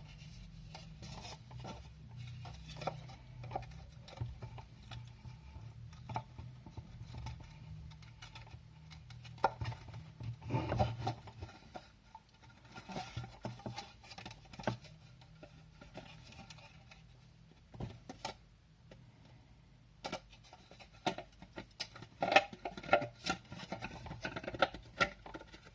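Irregular small clicks, taps and scratchy rustles of hands fitting wires and plastic parts into a fan's electric motor housing during reassembly, over a low steady hum that stops about eleven seconds in.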